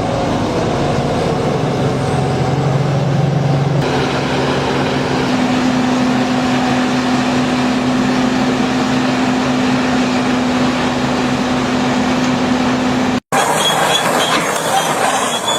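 Heavy machinery running steadily with an engine hum. It changes abruptly a few seconds in, then drops out briefly and comes back as a different, noisier machine sound near the end.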